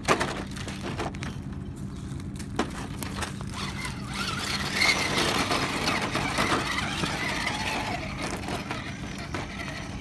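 Axial Deadbolt RC rock crawler driving over gravel and rocks: its electric motor and drivetrain whining while the tyres crunch on loose stones, loudest through the middle few seconds. A sharp knock right at the start.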